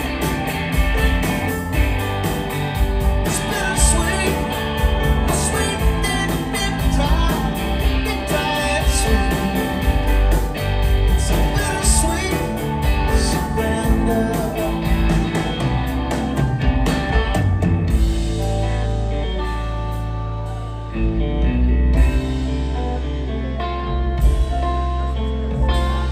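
Live rock band playing: electric guitar over keyboards, bass and drums, with a male lead vocal at times. The cymbal wash thins out about two-thirds of the way in, leaving guitar and a heavy bass.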